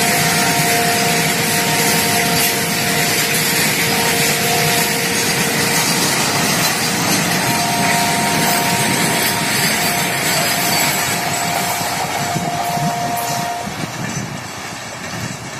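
Freight train of covered goods wagons rolling past close by: a steady, loud running noise of wheels on rail, with thin squealing tones that come and go. The noise falls away near the end as the brake van passes.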